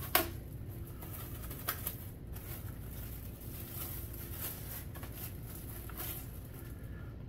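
Clear plastic bag holding the instruction manual rustling as it is handled, with a sharp click just after the start and a few softer clicks later, over a steady low hum.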